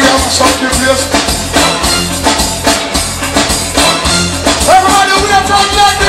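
Live reggae band playing through a loud PA: a steady, pulsing bass beat with drums, and a voice singing over it, most clearly near the end.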